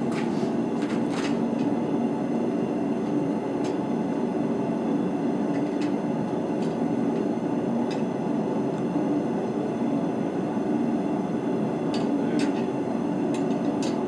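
A blacksmith's forge running with a steady, even rush of fire and air, with a few faint clicks of metal being handled.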